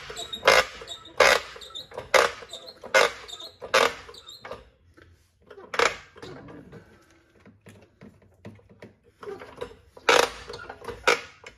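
Hydraulic floor jack being pumped under load to raise a car's rear trailing arm: a sharp creak-clack at each handle stroke, about one a second, stopping for about four seconds midway and then starting again.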